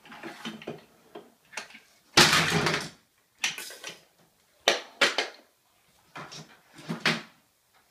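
Plastic toys clattering in a wooden toy-table storage bin, and the table's hinged wooden lid knocking shut, in a string of separate knocks and rattles. The loudest clatter comes about two seconds in and lasts under a second.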